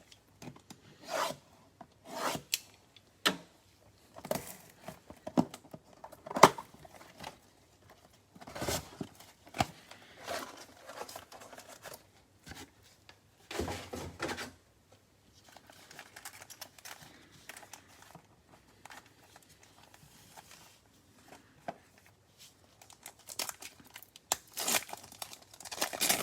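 Plastic wrapping and foil card packs of a Prizm baseball mega box being torn open and crinkled, in irregular short rips and rustles.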